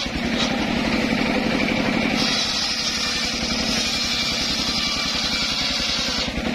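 Homemade engine-driven circular saw bench running, its engine pulsing steadily underneath. About two seconds in, the blade bites into a mahogany log and the cutting noise runs for about four seconds, dropping away just before the end as the cut stops.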